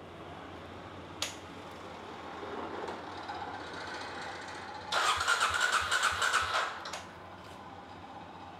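A click about a second in, then the electric starter of a Kawasaki D-Tracker's single-cylinder engine cranks for about two seconds and stops without the engine catching: a start attempt right after a carburettor rebuild with a new jet needle and float valve.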